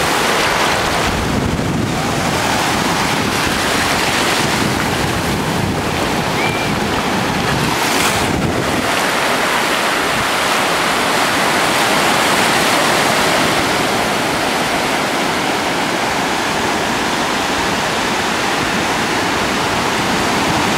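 Ocean surf breaking and washing up over the sand in a steady rush, with wind buffeting the microphone. A brief louder hiss comes about eight seconds in.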